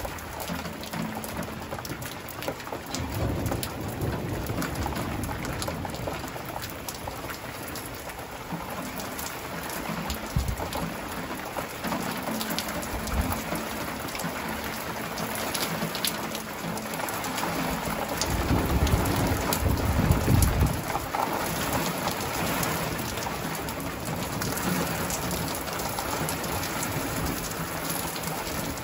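Steady rain falling, with thunder rumbling several times; the loudest and longest rumble comes about two-thirds of the way through.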